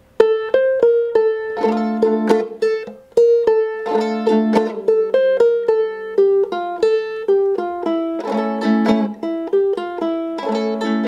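Solo ukulele playing a mix of chords and single plucked notes. It starts just after the beginning, with a brief break about three seconds in.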